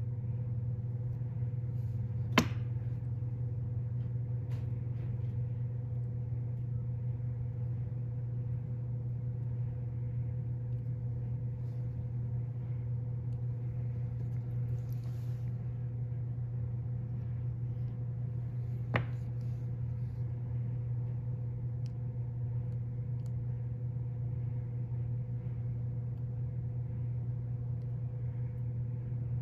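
Steady low mechanical hum with a faint steady tone above it, broken by two sharp clicks, one about two seconds in and another about two-thirds of the way through.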